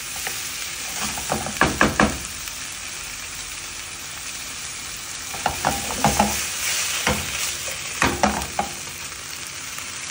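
Oil sizzling steadily as breaded pork cutlets and romanesco fry in two pans, with a wooden spoon stirring and knocking against a nonstick frying pan in three short bursts, about two, six and eight seconds in.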